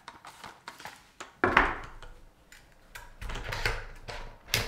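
Handling noise from a DJI camera gimbal with a clamped external monitor being adjusted and stood on a wooden table: a series of plastic-and-metal clicks and knocks, the loudest about a second and a half in.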